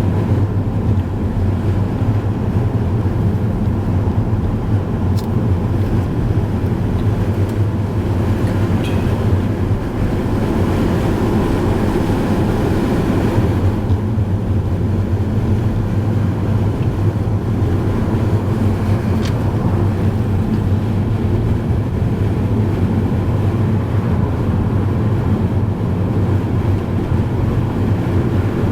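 Car driving at a steady speed: constant low road and engine noise heard from inside the cabin.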